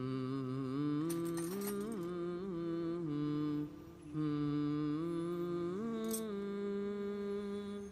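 Soundtrack music: a wordless hummed melody of long held notes moving in steps, pausing briefly near four seconds. A few short scratchy sounds come through about a second in and again near six seconds.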